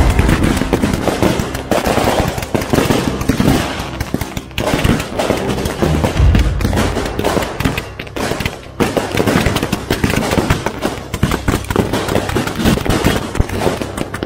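Fireworks firing at close range from boxes and racks on the ground: a rapid string of bangs and crackling, with heavy low booms at the start and again about six seconds in.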